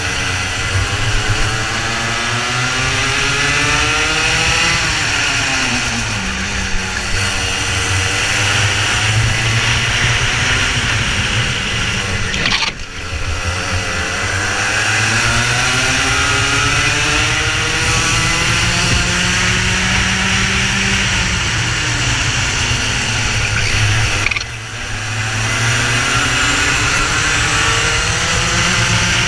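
Racing kart engine at full racing pace, its pitch climbing as it accelerates down the straights and falling under braking for the corners, over and over. The sound drops out briefly about 13 seconds in and again about 24 seconds in.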